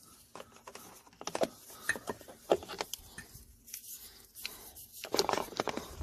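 Hard plastic glove-compartment parts being handled and worked loose by hand: a series of short clicks and scrapes, loudest at about a second and a half, two and a half and five seconds in.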